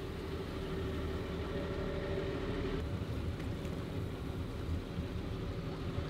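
Boat engine running steadily under way while trolling, a continuous low rumble. A steady hum within it stops about three seconds in.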